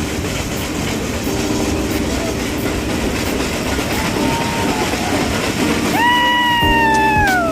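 Nilgiri Mountain Railway toy train running, with a steady rumble of the moving train. About six seconds in its whistle sounds, one strong tone lasting about a second and a half that sags slowly in pitch and falls away at the end.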